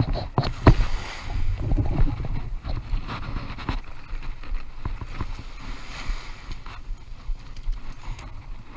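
Wind on a body-worn camera's microphone and shallow surf washing over sand, with a jacket sleeve brushing against the camera and a few sharp knocks in the first second or so.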